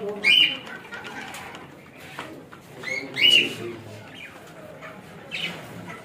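Caged budgerigars and doves calling, with a busy background of chirping and two loud high chirps, one about a third of a second in and one just after three seconds in.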